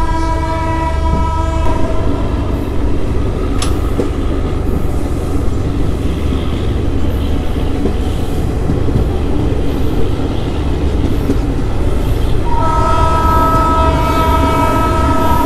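Express passenger train running at speed, heard from an open coach door: a steady rumble of wheels on rail. A chord-like locomotive horn sounds at the start and stops about two seconds in, then blasts again, louder, for the last three seconds.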